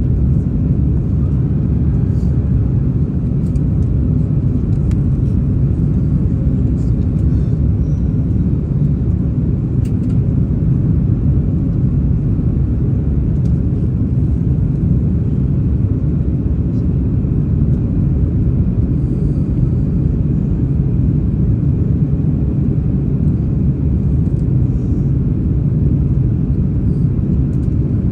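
Steady low roar of an Airbus A330-300's twin engines and airflow heard inside the cabin at a window seat over the wing during the climb-out.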